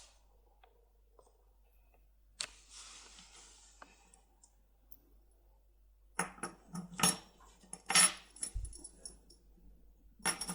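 Small metal parts, lock cylinders and tools being handled: a faint rustle about two seconds in, then from about six seconds a quick run of metallic clicks and clinks with a light ringing.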